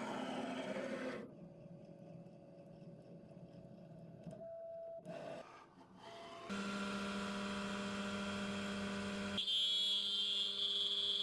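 Makera Carvera desktop CNC mill: a short motor whir near the middle, then about six seconds in its spindle runs with a steady whine over a hum. About nine seconds in, a higher whine joins and the sound grows louder as the single-flute bit starts milling the 6061 aluminium plate.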